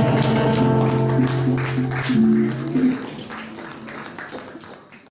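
Final bars of a live Latin song on nylon-string classical guitar with voice and hand percussion, ending on held notes that stop about three seconds in; the sound then dies away.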